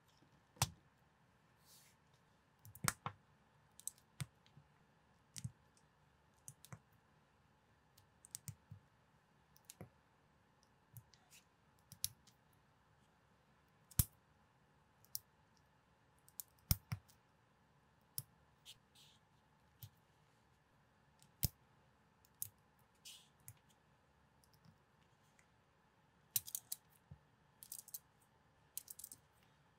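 Small plastic building bricks being handled and snapped together by hand: a sparse series of sharp plastic clicks, coming closer together near the end.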